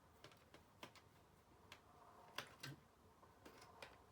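Faint, scattered clicks and taps of small screws and plastic laptop parts being handled during reassembly, the loudest pair about two and a half seconds in.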